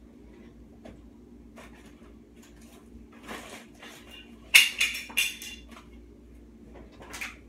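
Rustling and clattering of things being handled, with a short burst of louder clatter about halfway through, over a faint steady hum.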